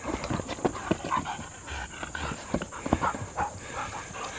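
Huskies play-fighting: short dog vocal sounds mixed with repeated quick knocks and scuffs of paws on the cot and grass.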